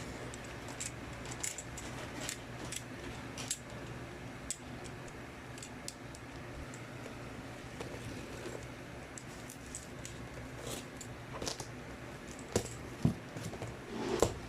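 Opening a cardboard shipping box: scattered small scrapes and clicks of packaging being handled, with a few louder knocks near the end, over a steady low hum.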